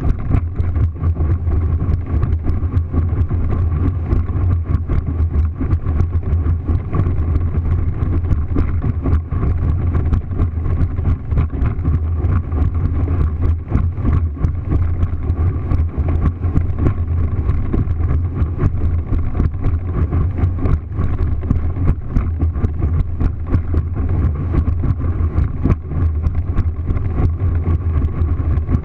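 Small motorboat running flat out across open chop: a steady, loud low engine drone with wind on the microphone and frequent short knocks as the hull hits the waves.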